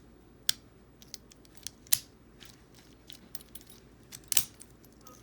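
Small aluminum padlock being handled, giving irregular sharp metallic clicks and clinks, the loudest about half a second in, about two seconds in and near the end.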